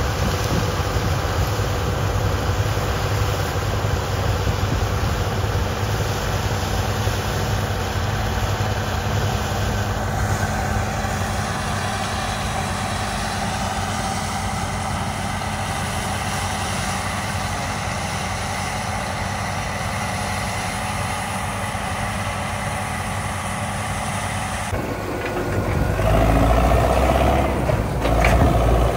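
Bizon combine harvester running steadily while harvesting barley: a continuous engine and machinery drone. About three-quarters of the way in it gives way to a louder, deeper tractor engine heard close up.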